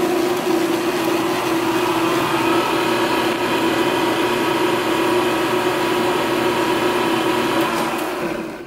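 Day lab double sigma arm mixer running empty under power at a raised setting on its variable-speed drive: a steady machine hum and whine from the motor, gearing and turning blades. The sound fades out near the end.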